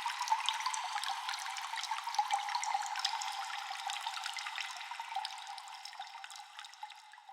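Constant dripping water echoing in a cave: many small drops falling in quick, irregular succession. It fades down over the last couple of seconds.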